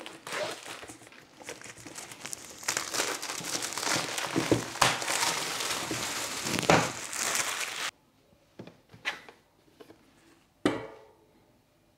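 Plastic shrink-wrap film crinkling and tearing as it is peeled off a cardboard box, cutting off abruptly about two-thirds of the way through. Then a few light knocks, and near the end a louder knock with a rustle as the box lid is lifted off.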